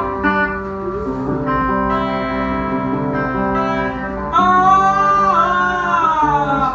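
Guitar playing held notes with a voice singing over it; about four seconds in a louder sung note comes in, wavering and sliding down in pitch near the end.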